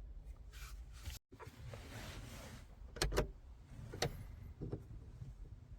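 Hands working on plastic overhead interior trim and its screws in a car cabin: a rustle and scrape, then several sharp plastic clicks about three and four seconds in.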